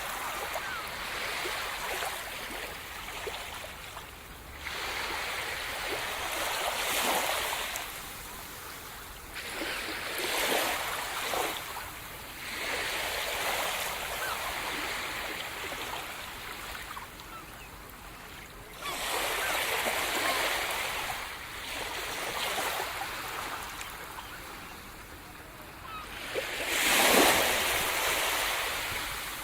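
Sea surf: waves breaking and washing in one after another every few seconds, each surge swelling to a hiss and falling back, the largest near the end.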